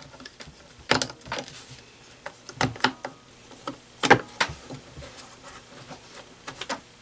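Scattered clicks and knocks of a hand screwdriver working the screws out of a plastic leaf blower housing, with the housing being handled and shifted on the bench. The sharpest click comes about four seconds in.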